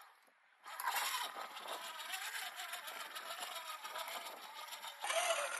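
Redcat Gen8 1/10-scale RC rock crawler driving, its electric motor and gear drivetrain whining, with many small ticks and crunches. It starts after a near-silent pause just under a second in, and gets louder and changes character near the end.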